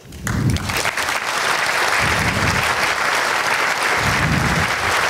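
Audience applauding: clapping breaks out just after a brief pause, builds over the first second, then carries on steadily.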